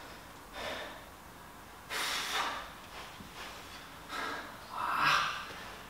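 A man breathing hard under exertion during a workout, with about four forceful, audible breaths. The strongest comes about two seconds in and another near the end.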